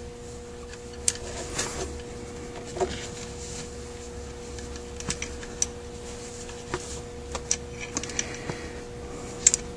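Scattered small metallic clicks and taps of carburetor parts being handled while the accelerator pump link is fitted to a Zenith 28 carburetor, with a steady faint hum beneath.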